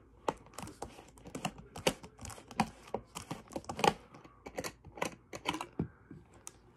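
School supplies clicking and clacking as they are handled and packed: an irregular run of small sharp knocks, a few a second, the loudest about four seconds in, thinning out near the end.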